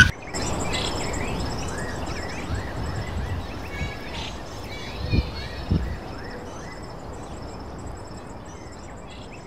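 Outdoor ambience with small birds chirping over and over and a high, rapid pulsing trill behind them, over a steady background hiss. Two dull thumps come about five seconds in.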